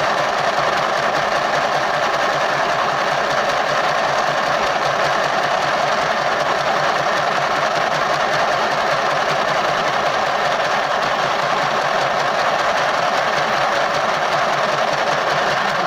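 Mini electric sewing machine running steadily and stitching, driven continuously by its on/off switch rather than a foot pedal; it stops suddenly at the end.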